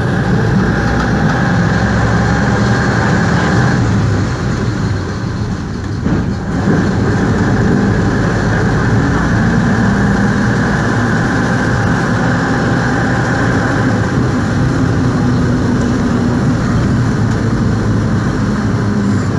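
Skoda 706 RT straight-six diesel of a 1977 Jelcz 272MEX bus running under way, heard from inside the passenger cabin. The engine note eases off for about two seconds around four seconds in, then pulls again steadily.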